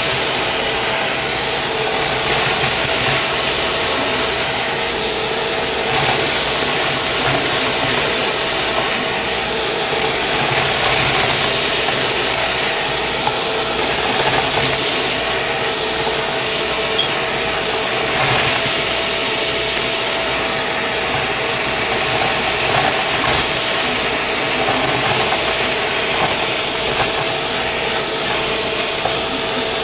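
Shark vacuum running through its crevice tool, a steady motor whine over rushing air, with confetti and sequins crackling as they are sucked up the nozzle.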